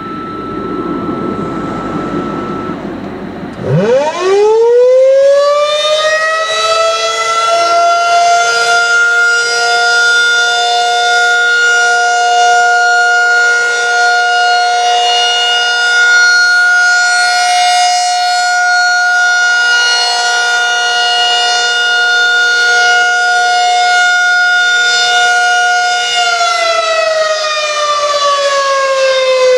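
Federal Signal 2001-SRN electromechanical outdoor warning siren sounding a test, preceded by a few seconds of steady radio alert tones. About four seconds in the siren winds up quickly to a steady tone made of several pitches together, holds it, and near the end starts to wind down with a falling pitch.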